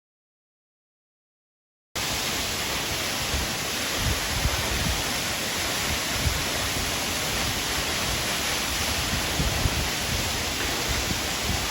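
Silence for about two seconds, then the steady rush of Minoo Falls, a large waterfall's water falling without pause, with light low thumps of wind on the microphone.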